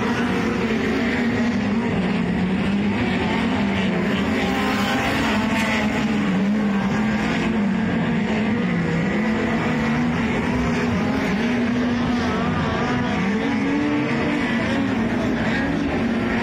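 Pack of methanol-burning dirt-track speedway race cars running round the oval. Their engines rise and fall in pitch over and over as the drivers lift for the turns and get back on the throttle down the straights.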